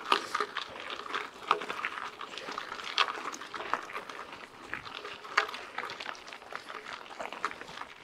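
Mountain bike rolling over a dirt road, with irregular crunches and clicks from the tyres on loose ground.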